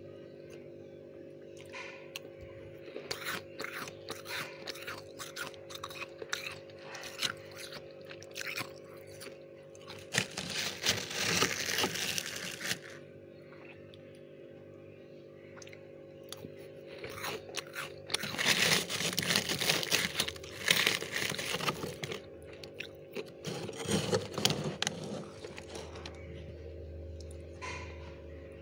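Mouthfuls of dry, powdery freezer frost being bitten and chewed, making crisp crunches. There are sparse crackles at first, then three long dense bursts of crunching. A steady low hum runs underneath.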